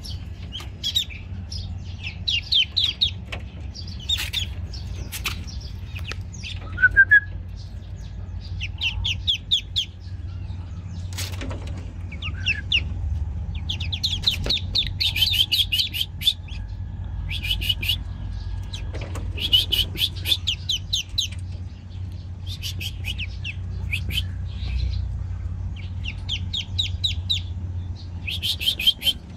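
Newly hatched ducklings peeping in quick high-pitched runs, one run after another, over a steady low rumble.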